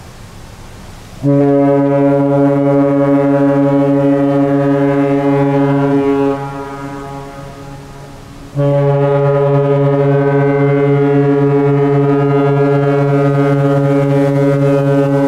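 Cruise ship's horn sounding two long, loud blasts, the first about five seconds and the second about seven, each a deep steady chord of low tones that dies away in a slow echo.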